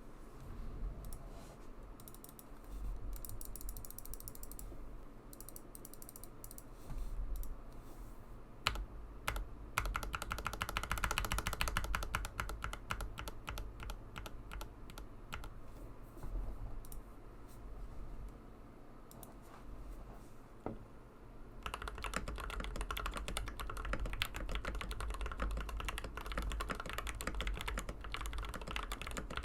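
Typing on a custom TM680 mechanical keyboard with Gateron Silver Pro linear switches and Darling keycaps. Scattered keystrokes at first, then stretches of steady typing, turning into fast continuous typing about three-quarters of the way through.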